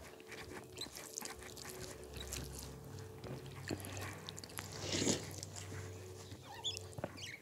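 Close-miked eating sounds: chewing with wet mouth clicks and smacks, and fingers squishing rice and chicken curry on a plate. A louder burst of mouth noise comes about five seconds in.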